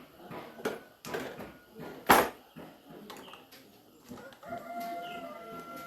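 A few sharp knocks and clicks of hand tools on the fan's parts, the loudest about two seconds in, then a rooster crowing in one long, steady call beginning about halfway through.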